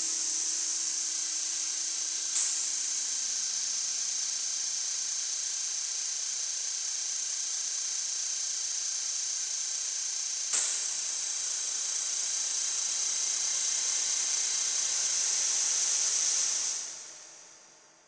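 A steady high hiss, with a sudden louder surge about two and a half seconds in and another about ten and a half seconds in. It fades out over the last second or so.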